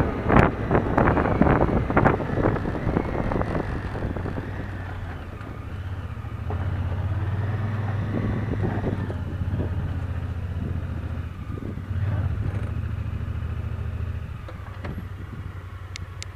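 Honda Pioneer side-by-side's engine running as it drives, with rattling and knocking over the first few seconds. The engine gets louder twice in the middle, then drops to a quieter, steady run near the end.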